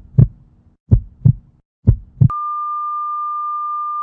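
Heartbeat sound effect: deep double thumps, lub-dub, about once a second. About two seconds in, they are replaced by the steady high flatline tone of a heart monitor, which signals that the heart has stopped.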